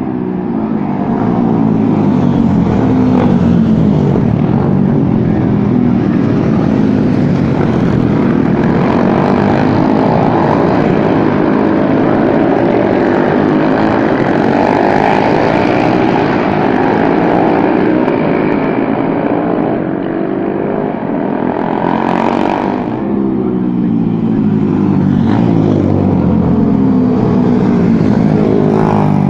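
Supermono single-cylinder racing motorcycles passing one after another at full throttle. The engine pitch keeps rising and falling as the bikes rev, change gear and go by, and the noise dips briefly a little past two-thirds of the way through.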